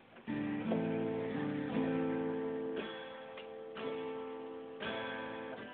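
Acoustic guitar played solo, chords strummed about once a second and each left to ring.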